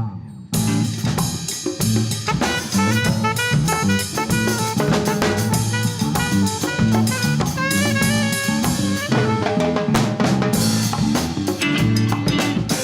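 Latin fusion band playing live, with the drum kit to the fore over a moving bass line and melodic runs. The band drops out for a brief break about half a second in, then comes straight back in.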